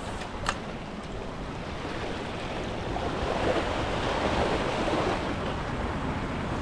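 Sea waves surging and washing over a rock ledge below, the wash swelling about three seconds in, with wind on the microphone. A single short click near the start.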